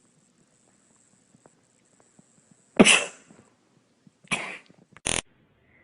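Three short, explosive breath bursts, cough- or sneeze-like, most likely from an animal. The first, about three seconds in, is the loudest and longest; the others follow about a second and a half and two seconds later.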